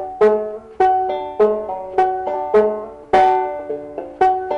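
Five-string banjo with nylon strings, in open D tuning, played slowly two-finger style: a steady run of plucked melody notes ringing and decaying, with accented pinches marking the beat.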